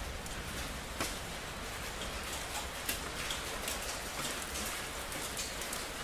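Steady rain falling on hard city surfaces, with a few single drops ticking sharply now and then over a low rumble.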